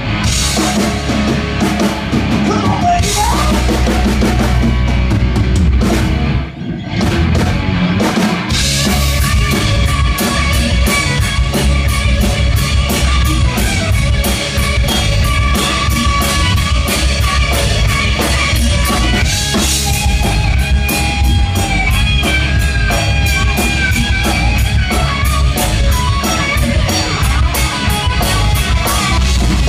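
Live rock band playing, with drum kit and electric guitar. The band drops out briefly about six seconds in, then the drums come back in with fast, steady cymbal strokes.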